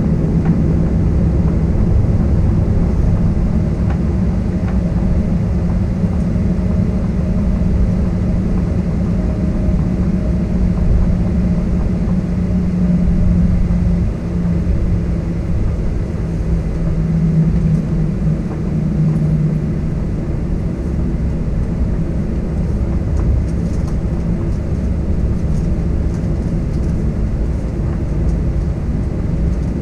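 Boeing 737-800's CFM56 turbofan engines at taxi power, heard from inside the cabin by the wing: a steady hum over a low rumble. A low drone holds through the first two-thirds and then fades.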